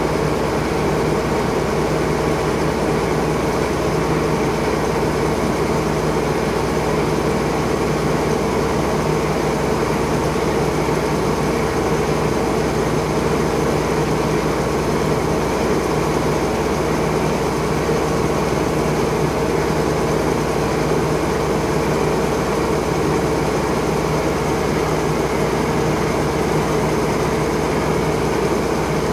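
Grain auger running steadily as it unloads wheat from the bottom of a truck trailer: a constant, unchanging machine drone with a steady hum.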